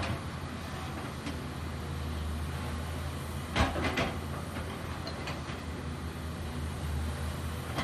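Volvo hydraulic excavators' diesel engines running steadily at work. Midway through, two sharp knocks about half a second apart, with a few fainter ticks after them.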